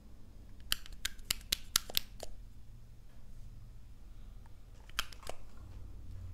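Sharp, sticky clicks as a pen-style makeup applicator tip dabs onto clear slime and pulls away: a quick run of about eight in the first couple of seconds, then three more near the end.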